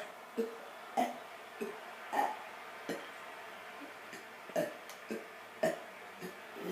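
A person letting out a string of short burps, about ten in quick succession at uneven intervals.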